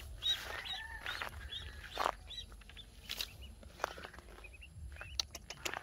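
Birds chirping in short, repeated high peeps, with a few sharp clicks and rustles in the grass, the last several bunched near the end.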